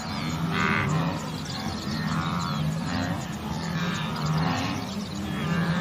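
Wildebeest grunting calls, repeated about once a second, several overlapping as from a herd.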